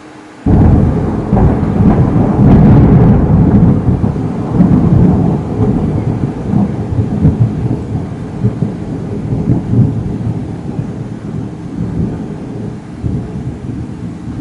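A close thunderclap breaks suddenly about half a second in, then becomes a long rolling rumble of thunder that slowly fades, with several renewed louder rolls.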